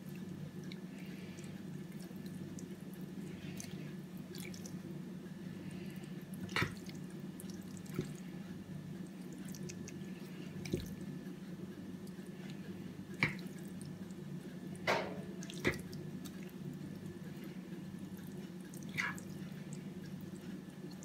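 Occasional soft, wet clicks from hands packing a moist rice-and-meat stuffing into a tripe pouch, about seven spread out, over a steady low hum.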